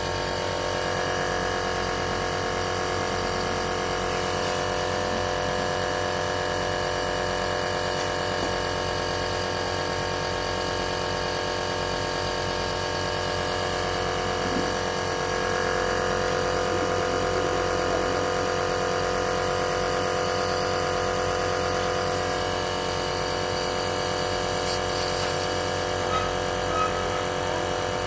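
Compressor nebulizer running, a steady buzzing hum of its small motor that holds unchanged throughout, with a couple of faint ticks near the end.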